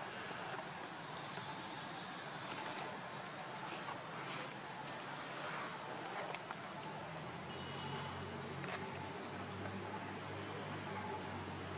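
Steady high-pitched insect drone over an even background hiss, with a few faint clicks and a low hum coming in about seven seconds in.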